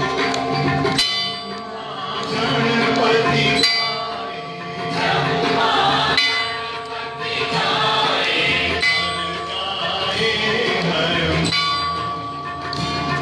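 A congregation singing an aarti hymn together, with a bell struck about every two and a half seconds, five times, each stroke ringing on over the singing.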